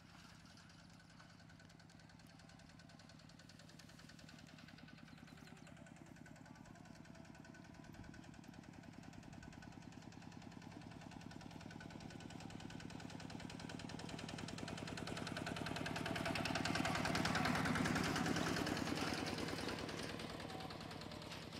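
A motor vehicle's engine running with a rapid, even beat, growing steadily louder as it approaches, loudest about three-quarters of the way through, then fading a little.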